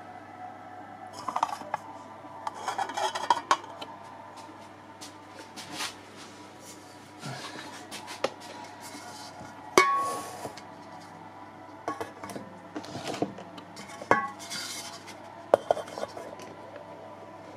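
Large metal bowls being handled and set down on the floor: irregular clinks, knocks and scraping. A faint steady tone and low hum run underneath.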